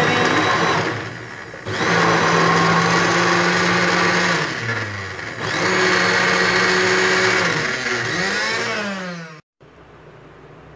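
Electric mixer grinder grinding boiled raw mango pulp with sugar into a thick paste. The motor runs in several bursts, its pitch sagging and climbing again between them, then switches off about nine and a half seconds in.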